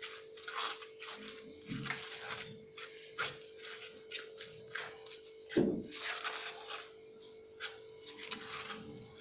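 Carrot paste being pressed and scraped against a strainer to squeeze out the juice: irregular wet scrapes and light knocks, with a sharper knock about five and a half seconds in, over a faint steady hum.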